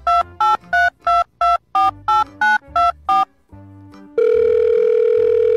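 A short run of electronic beeps, about three a second at a few slightly different pitches like a simple tune, then one long steady lower beep starting about four seconds in.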